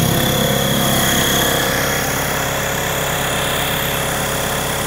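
Werther WallAir tankless wall-mount air compressor running steadily just after being switched on: a dense motor hum with a steady high whine over it, a little louder for the first second or two before settling.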